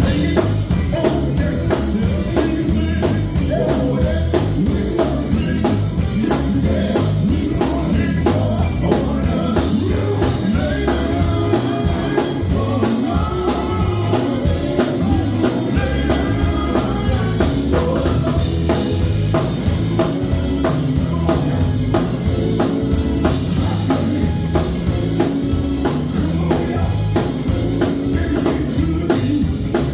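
Live gospel music: a band with a drum kit and bass playing a steady beat, with singing over it.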